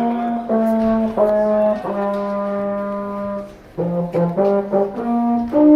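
Baritone horn (euphonium) playing a solo phrase: a few separate notes, one long held note, then a quick run of short notes, ending on a louder, higher note.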